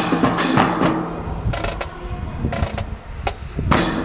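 A marching drum corps plays a cadence on bass drum and snare drums, with sharp strokes at uneven spacing. A loud strike opens it.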